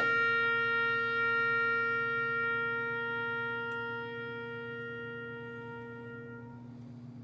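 Background music ending on a wind instrument holding one long note that slowly fades and stops near the end, over a lower steady drone that carries on.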